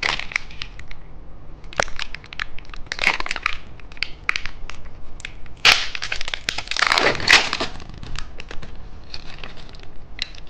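Plastic candy wrapper crinkling and crackling as it is handled and unwrapped, in irregular bursts, busiest about three seconds in and again a little past the middle.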